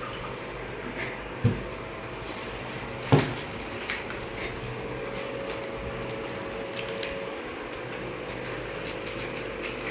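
Tabletop eating noises as snack packets, plates and a glass bottle are handled. There are two dull knocks, about a second and a half in and again about three seconds in, and a few faint clicks, over a steady low hum.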